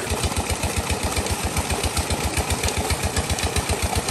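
Petter diesel tubewell engine running steadily with even low thumps, about six a second, under the rush of water gushing from the outlet pipe into the tank.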